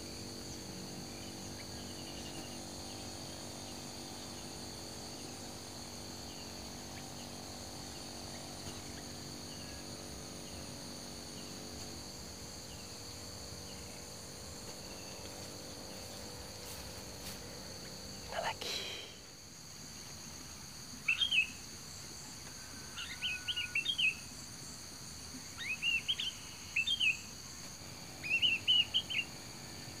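Sooty-headed bulbul calling in four or five short bursts of bright chirpy notes, starting about two-thirds of the way in, over a steady high buzz of insects. A brief falling sound comes just before the calls begin.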